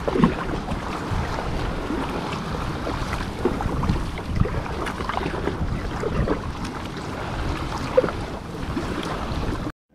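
Wind on the microphone and sea water splashing around an ocean kayak out on choppy waves, a steady rough rumble with irregular splashes; it cuts off abruptly near the end.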